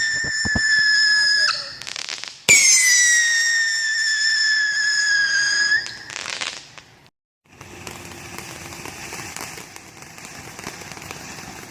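Whistling fireworks: a long shrill whistle, sinking slightly in pitch, ends about a second and a half in. A second whistle starts about two and a half seconds in and runs about three seconds, ending in a burst of crackling pops. After a brief cut, a steady hiss runs to the end.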